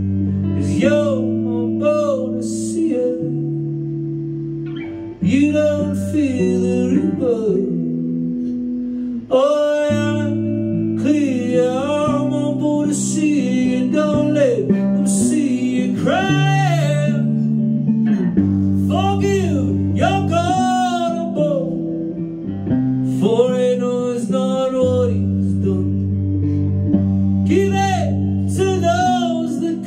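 A man singing a song live while accompanying himself on a hollow-body electric guitar, sustained chords ringing under the sung melody line.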